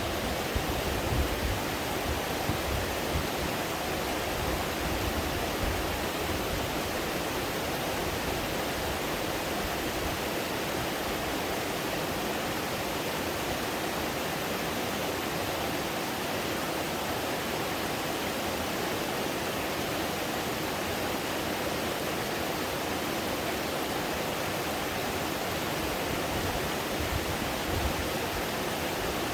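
A small mountain waterfall pouring and splashing steadily into a stream, a constant rushing of falling water with a little low rumbling now and then.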